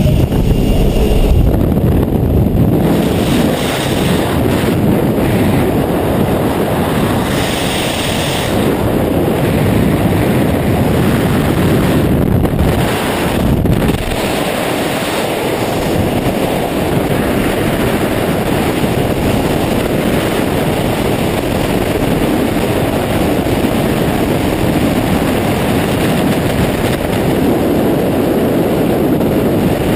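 Steady, loud rush of freefall air buffeting a skydiving camera's microphone.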